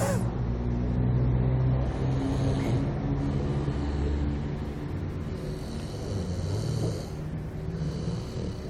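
A pet snoring in its sleep: a low, drawn-out snore that eases off slightly near the end.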